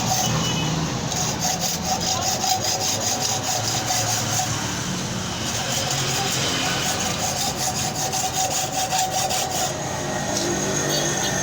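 Rapid, repeated back-and-forth rasping strokes of a hand tool working the metal of a motorcycle hub, as in sawing or filing, with a steady faint whine behind.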